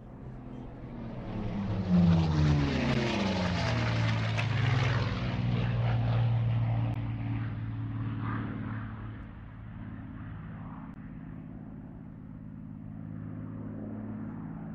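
Propeller airplane's piston engine passing close by. The drone swells, its pitch drops as the plane goes past about two seconds in, then it settles into a quieter steady drone.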